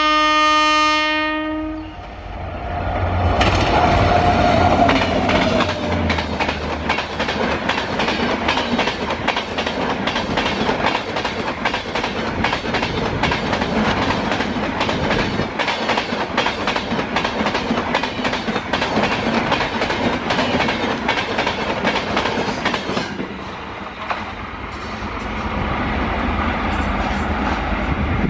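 WAP7 electric locomotive sounding its horn for about two seconds, then passing at high speed at the head of an express train. The coach wheels keep up a rapid, even clatter over the rail joints until the sound drops off as the last coach goes by, a little over twenty seconds in.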